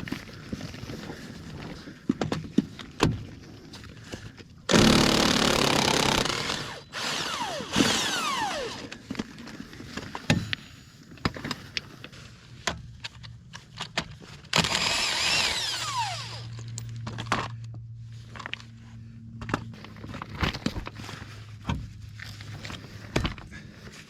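A handheld power tool runs in two bursts of about two seconds each, its pitch falling away as it winds down after each one. Many clanks and knocks of metal and tools fall between the bursts.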